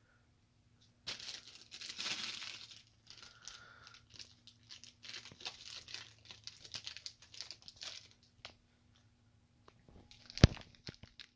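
Crinkly plastic wrappers of an L.O.L. Surprise Pets toy being torn open and crumpled by hand, a run of crackling tears starting about a second in. Near the end comes one sharp click.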